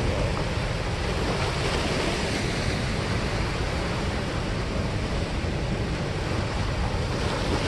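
Steady rush of turbulent water pouring through a dam spillway, a continuous even roar.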